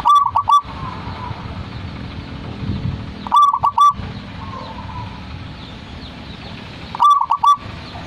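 Zebra dove (perkutut) cooing: three short loud phrases of about four quick notes each, spaced roughly three and a half seconds apart.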